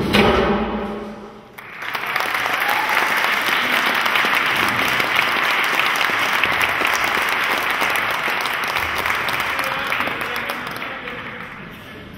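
Hand-drum music ends and dies away over the first second and a half. Then an audience breaks into applause that holds steady for about eight seconds and fades near the end.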